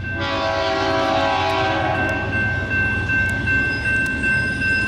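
Union Pacific freight locomotive's air horn sounds one blast of about two seconds, starting suddenly and fading out, over the steady ringing of the crossing's Safetran electronic bell and a low rumble underneath.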